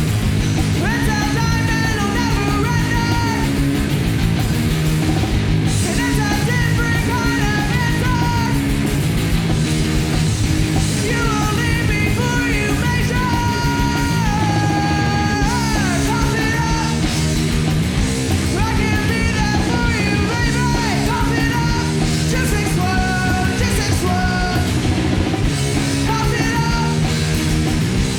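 A punk rock band playing live: electric guitar, bass and drums, loud and driving, with a woman singing and yelling over them.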